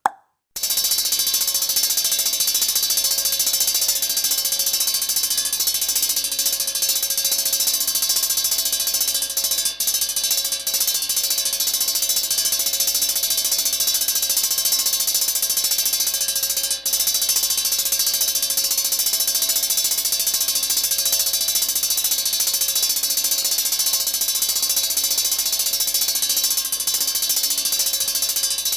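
Electric fire-alarm bell ringing continuously, a fast metallic clatter of the striker on the gong, starting about half a second in with a couple of brief dropouts.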